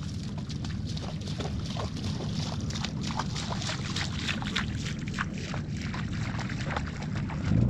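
Small waves lapping and splashing at the sandy river edge: a quick, irregular run of wet clicks over a steady low rumble.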